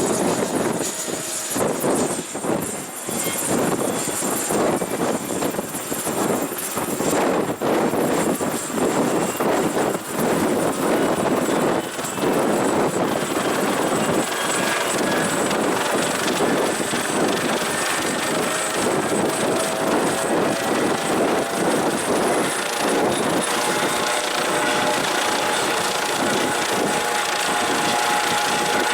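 Helicopter running steadily, with a fast rotor beat and a thin high turbine whine. About two-thirds of the way through, further steady tones join in.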